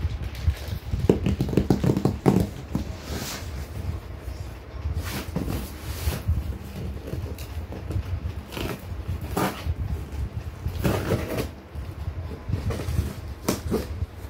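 Knife slitting packing tape along a cardboard box, with irregular scrapes and rustles of the cardboard as the flaps are worked open.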